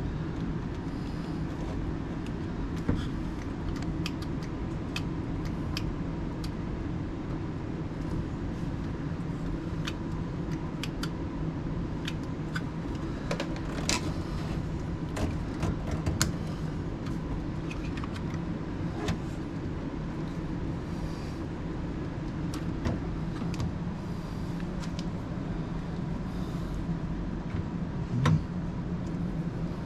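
A steady low drone throughout. Over it come scattered light clicks and taps of wiring connectors and test-probe tips being handled in a vehicle door, with a small knock near the end.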